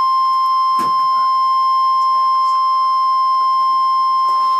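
NOAA Weather Radio's 1050 Hz warning alarm tone: a single loud, steady, high-pitched tone that switches on abruptly and holds. It signals that a warning message is about to be broadcast, here a severe thunderstorm warning.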